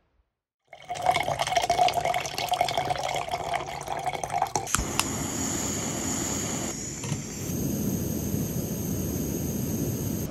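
Water poured with a gurgle, then a sharp click about five seconds in and an MSR gas canister stove burning with a steady hiss.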